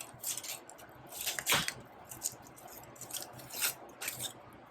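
An onion being cut and handled on a cutting board: a handful of separate crisp crunches and papery rustles, the loudest about a second and a half in.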